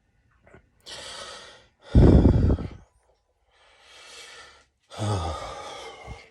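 A sick man breathing heavily: two breathy inhales, each followed by a loud, voiced, sighing exhale, the first about two seconds in and the second about five seconds in.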